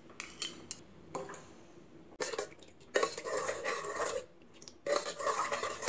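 Steel spoon clinking and scraping against a small steel bowl, then stirring juice in a steel bowl, with the spoon swishing through the liquid and scraping the sides.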